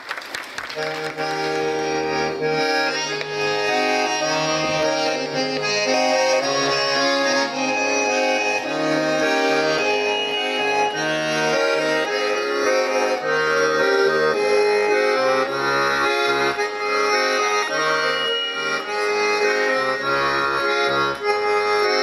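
Solo Russian garmon (button accordion) playing a traditional-style tune: a melody of held notes over a steady, rhythmic bass-and-chord accompaniment.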